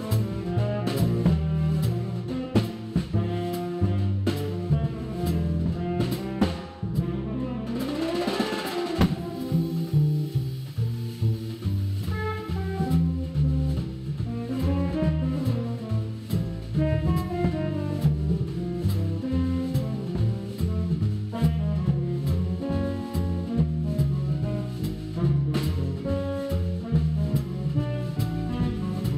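Background jazz music with saxophone and brass over drums and bass, with a steady beat.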